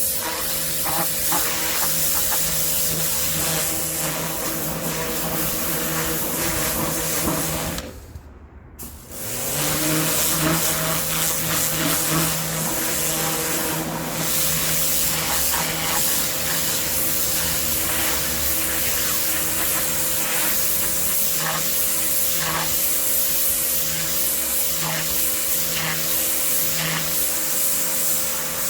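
Kärcher K7 electric pressure washer running, its motor humming under the hiss of the high-pressure water jet. About eight seconds in, the trigger is let go and the sound cuts out briefly, then the motor starts up again with a rising hum and the spraying resumes.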